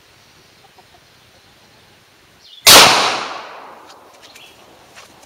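A single .40 S&W pistol shot firing a full metal jacket practice round, about two and a half seconds in, very loud, with an echo trailing off over about a second and a half.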